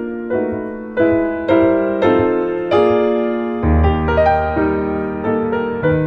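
Slow classical piano music: notes struck about twice a second, each fading away, with a deeper bass note coming in about three and a half seconds in.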